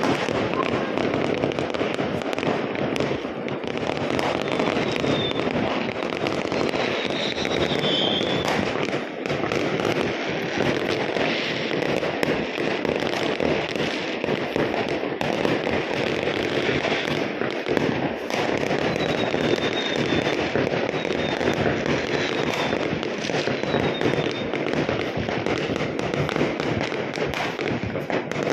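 Many fireworks and firecrackers going off across a neighbourhood at once, a continuous dense crackling and popping with no break.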